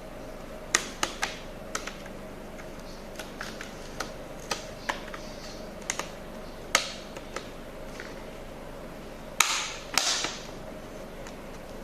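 Plastic snap-fit clips of a Lenovo laptop's case clicking and popping as the case is pried apart, in irregular sharp clicks. Near the end two louder snaps, each followed by a short scraping crackle.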